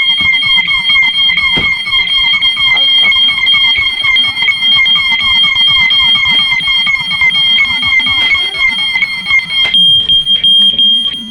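Several fire and smoke alarms sounding at once and very loud: a steady high-pitched tone over a fast warbling tone that repeats about five times a second. Near the end the warbling alarm cuts off suddenly, leaving the steady tone.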